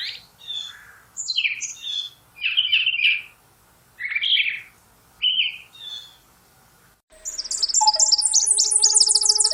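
Songbirds singing. For about seven seconds a bird sings separate short, varied phrases with pauses between them. Then a different recording cuts in abruptly with rapid, continuous high twittering over a few steady lower whistled tones.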